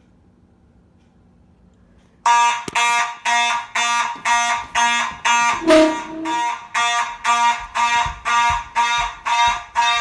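A fire alarm horn sounds suddenly about two seconds in and keeps pulsing loudly about twice a second. This is the system going into alarm after a test of the first-floor smoke detector.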